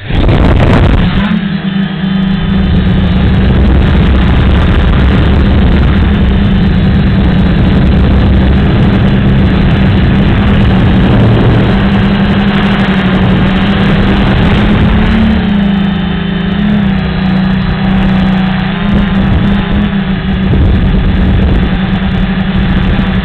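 Gaui 330XS quadcopter's brushless motors and propellers spinning up abruptly, then running loud and steady in a close, even drone as it lifts off and flies, the pitch wavering a little as it manoeuvres.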